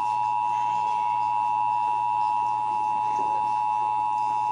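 Emergency Alert System two-tone attention signal: two pitches sounded together as one steady dual tone, marking the start of a Required Monthly Test broadcast.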